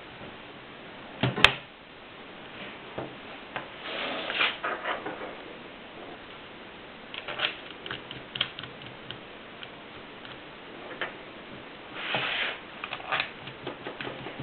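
Mercedes typewriter being worked, its keys clacking in short irregular runs. There is one sharp, loud clack about a second and a half in, and brief rasping mechanical noises among the clusters of key strikes.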